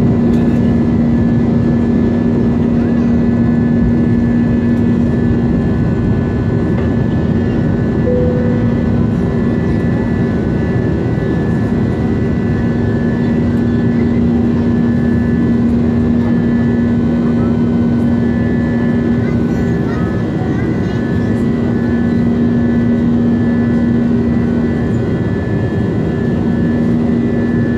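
Jet airliner's turbofan engines at takeoff thrust, heard from inside the cabin: a loud, steady rush of noise with a steady droning hum in it, through the end of the takeoff roll and the climb-out.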